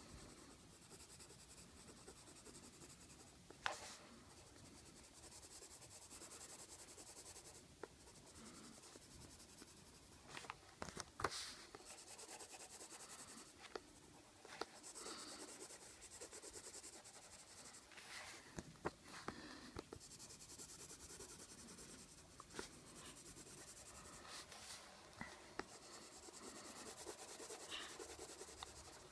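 Faint, steady scratching of a coloured pencil shading on paper, with a few sharp taps; the loudest taps come about four and eleven seconds in.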